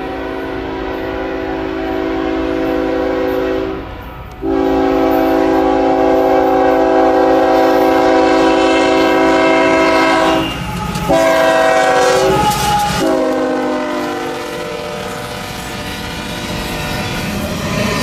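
Freight locomotive's multi-note air horn sounding long blasts broken by short gaps, with a shorter blast near the middle; its pitch drops about 13 seconds in as the locomotive passes close by. After that the horn fades and the freight cars rumble and clack past over the rails.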